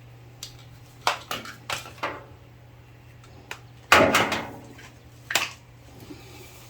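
Objects being handled and set down on a workbench: a string of separate knocks and clatters, the loudest about four seconds in with a brief ring after it.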